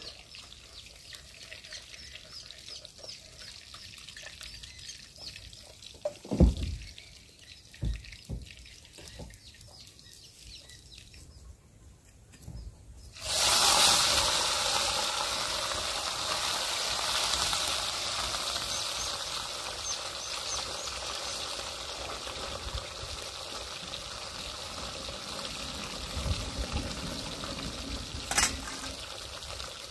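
Fish pieces going into hot mustard oil in a pan: a sudden loud sizzle about halfway through that slowly settles into a steady frying hiss with small crackles. Before it come a couple of dull knocks, and a sharp click sounds near the end.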